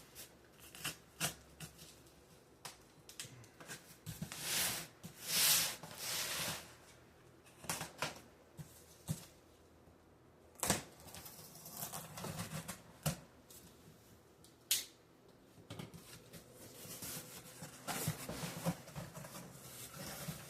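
Action figure packaging being opened by hand: irregular plastic clicks and snaps mixed with crinkling rustles, with a longer stretch of rustling a few seconds in.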